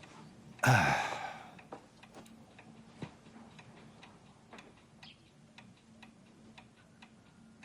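A person sighs once, heavily, with a falling pitch about a second in. A wall clock then ticks steadily, about twice a second, in a quiet room.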